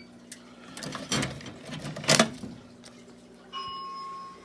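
Handling knocks and rustles, the loudest about two seconds in. About three and a half seconds in, a steady electronic tone from the fire alarm system starts and holds, then drops in level near the end.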